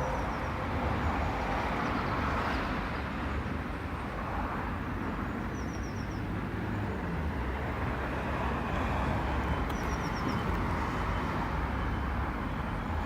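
Steady outdoor background rumble like distant traffic, with three brief runs of high bird chirps: near the start, about five and a half seconds in, and about ten seconds in.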